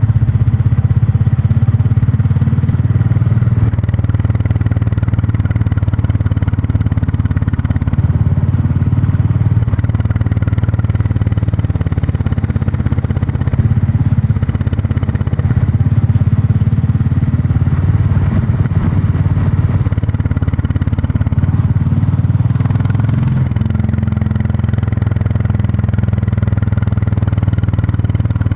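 Royal Enfield Classic 350's single-cylinder engine and exhaust running steadily under way, heard from on the bike; the engine note drops a little about three-quarters of the way through.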